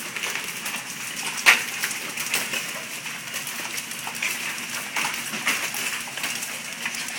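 Golf-ball-sized hailstones pelting the ground and buildings over a steady hiss of falling hail and rain, with sharp cracks of individual stones, the loudest about a second and a half in. The big cracks come from stones striking the metal gutters.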